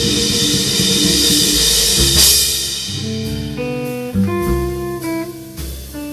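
Live jazz trio of electric guitar, upright bass and Gretsch drum kit playing. A dense passage with a cymbal wash peaks in a crash about two seconds in, then the band drops back to a sparse single-note electric guitar line over upright bass.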